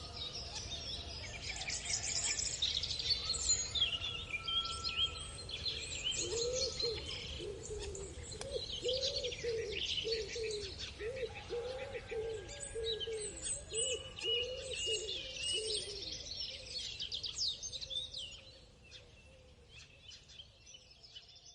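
Dawn chorus of many small birds chirping and singing, with a lower call repeated about twice a second from about six to sixteen seconds in. The whole fades out towards the end.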